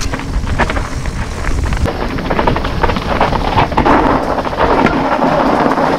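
Mountain bike riding a rough dirt trail: wind buffeting the action camera's microphone over the rumble of the tyres, with frequent knocks and rattles from the bike on the bumpy ground.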